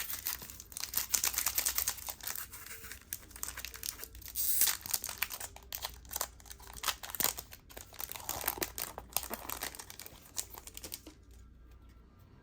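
Foil wrapper of a Pokémon trading card booster pack crinkling and tearing as it is opened, with a louder crinkle about four and a half seconds in. The crinkling stops near the end.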